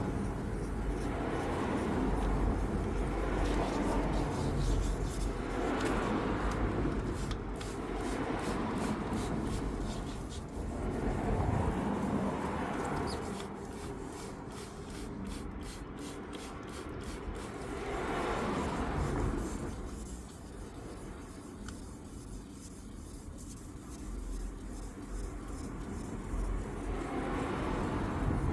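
Hand wet-sanding with fine abrasive paper on a car: repeated back-and-forth rubbing strokes that swell and fade every couple of seconds, over a low rumble.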